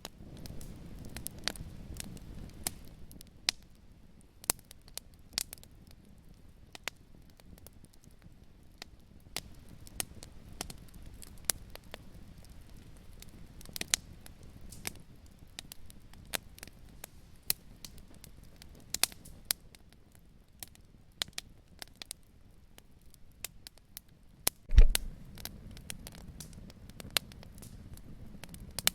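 Wood fire crackling, with irregular sharp pops and snaps over a soft low rumble. A single loud low thump about 25 seconds in.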